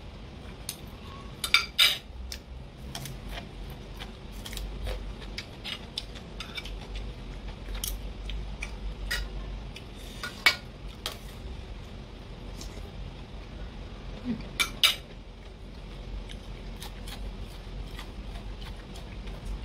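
Metal fork and spoon clinking and scraping against a ceramic plate and a stainless steel serving bowl, in scattered sharp clinks, loudest about two seconds in and again near the end.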